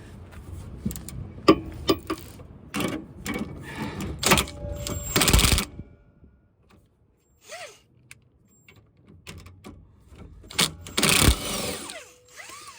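Hand tools working on a seized sway bar link nut, metal against metal. A run of sharp clicks and clanks over the first five or six seconds, then a louder metallic clatter with some ringing near the end.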